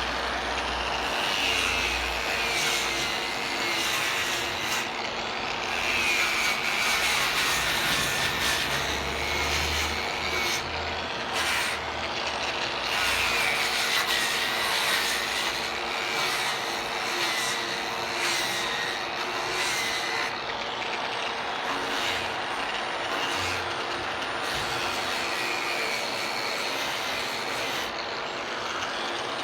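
A power tool's motor running steadily, its high whine dropping in pitch and recovering every few seconds as it is loaded while cutting wood.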